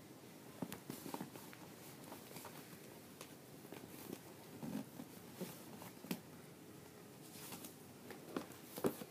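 Faint, scattered rustling and small clicks of a doll's box packaging being handled while the doll is worked out of it.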